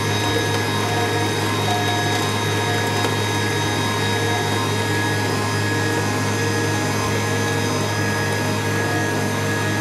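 Electric hand mixer running steadily as it beats egg yolks and sugar into a sponge batter while flour is added, with a stand mixer whisking egg whites alongside; the motors hum evenly and cut off abruptly at the end.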